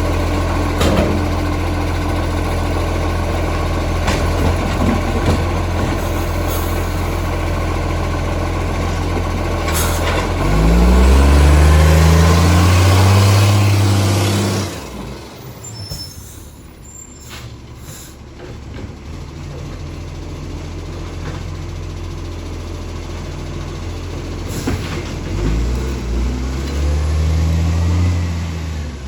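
Recycling garbage truck's diesel engine running at idle, then revving up for about four seconds before dropping away sharply; the engine is quieter after that, and a second rev-up comes near the end. The truck has an exhaust leak.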